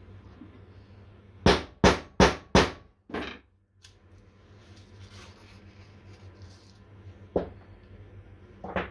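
A hammer striking a small steel punch held on gasket paper on a wooden bench: four quick hard blows about a third of a second apart, a lighter fifth, then two lighter knocks later on, cutting out small flange gaskets.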